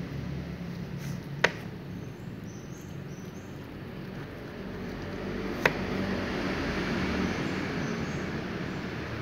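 A steady low rumble of background noise, with two sharp single clicks: one about a second and a half in, the other about four seconds later.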